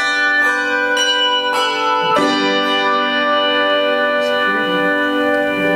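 Handbell choir playing: several bells struck in the first two seconds, then a held chord left ringing, its brightest overtones dying away toward the end as the piece closes.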